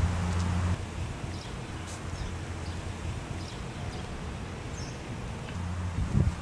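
Outdoor ambience: a steady background hiss with a few faint high bird chirps. A low rumble runs at the start and cuts off under a second in, then returns briefly near the end.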